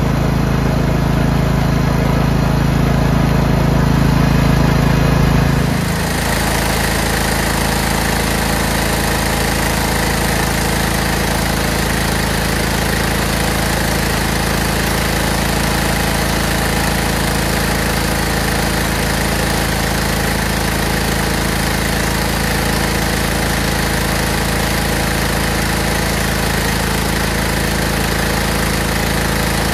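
Scotts by Murray 1542 lawn tractor engine running steadily at idle, settling to a slightly quieter, even level about six seconds in.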